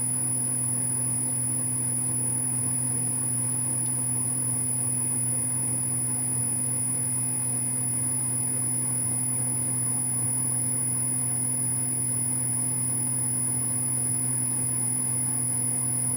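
Metal lathe running steadily, a constant hum of motor and gearing, during a screw-cutting pass on a 5 tpi Acme thread in a bronze nut.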